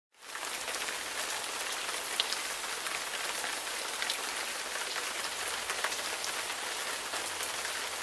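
Steady rain pattering: an even hiss with many small drops ticking through it.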